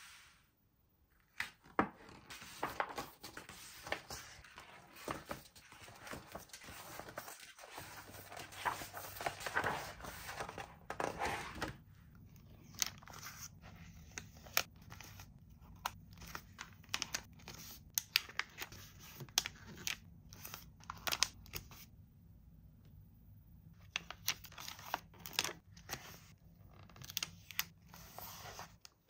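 Toy packaging being opened and handled: dense crinkling and tearing of packaging for the first dozen seconds, then a looser run of sharp clicks and taps.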